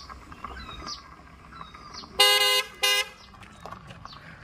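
Maruti Suzuki Eeco van's horn honking twice about halfway through, a longer honk followed at once by a short one.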